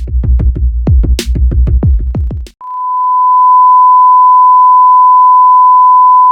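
A fast run of electronic bass hits, each a deep thud with a quick downward pitch drop, several a second. It stops about two and a half seconds in, and a steady high-pitched censor-style beep tone follows, held without change.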